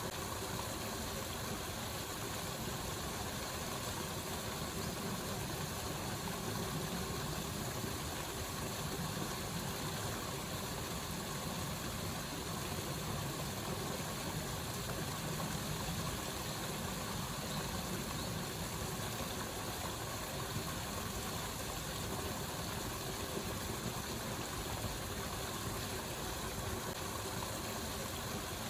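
Waterfall, a steady even rush of falling water.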